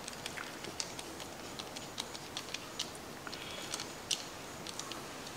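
Faint, irregular light clicks from a worm-gear hose clamp being tightened with a nut driver, the driver's screw ticking as it draws the band tight, a few clicks a second.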